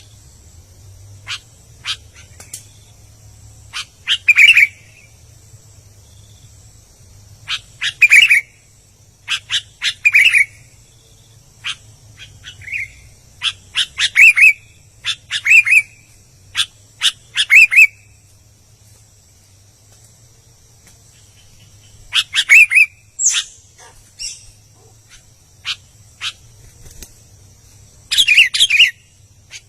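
Sooty-headed bulbul (kutilang) singing short, bubbly, warbling phrases, one every second or two, with a pause of a few seconds midway.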